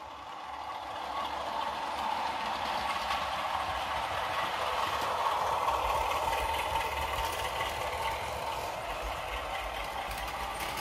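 Sound-fitted Heljan OO gauge Class 33 model diesel locomotive: its sound decoder plays the Class 33's diesel engine running through the model's small on-board speaker. It grows louder as the loco passes, at its loudest about halfway through, then eases slightly.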